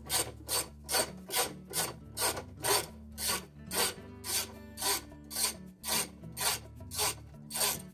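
Half-inch ratchet on a socket extension being worked back and forth, a short ratcheting rasp about twice a second, as it loosens the washer agitator's mounting bolt.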